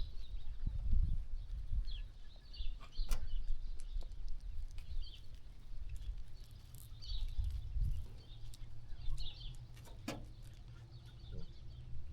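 Sheep farm ambience: small birds chirping on and off, with a sharp knock about three seconds in and another about ten seconds in, over a steady low rumble.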